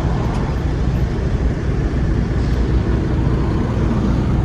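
Steady low rumble of motor vehicle engines, even throughout with no distinct knocks or clicks.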